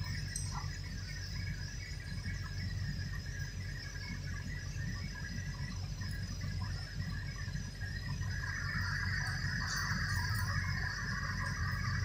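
Backhoe's diesel engine idling steadily as a low hum. A high, steady squeal joins about eight seconds in.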